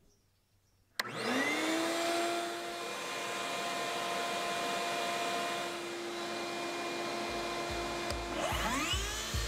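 Ridgid wet/dry shop vacuum switched on about a second in, its motor whining up to speed and then running steadily. Near the end a second motor whines up in pitch as the Ryobi ONE+ HP brushless cordless table saw starts.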